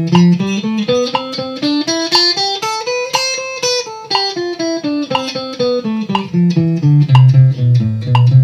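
Strat-style electric guitar playing the C major scale, pattern 5 (G form), in even sixteenth notes at about four notes a second. The run climbs from the low notes to the top of the pattern about three and a half seconds in, then comes back down to the low notes.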